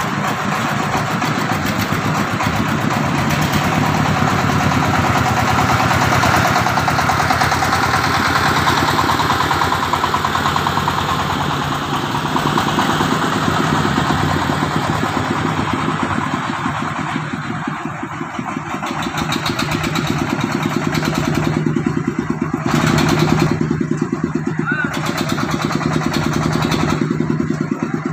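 Engine of a mobile rice-mill vehicle running with a fast, steady chugging pulse. It dips in loudness about two-thirds through, then grows louder again as a vehicle draws near.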